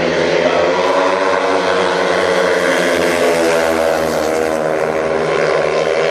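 Several speedway motorcycles with 500cc single-cylinder methanol engines racing together, their engine notes running at high revs and blending into one loud drone whose pitch rises and falls as the riders throttle through the bends.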